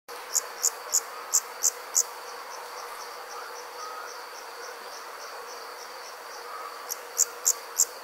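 Night insects chirping in summer. Loud high chirps come about three a second, stop after two seconds and start again near the end, over a steady high trill and fainter regular ticking from other insects.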